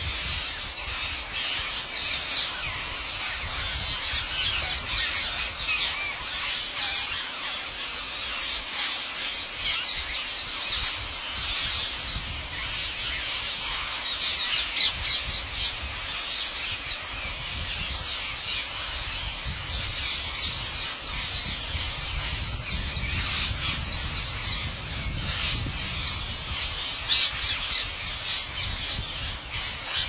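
A huge flock of rose-ringed parakeets calling all at once: a dense, unbroken din of shrill squawks, with a low rumble underneath.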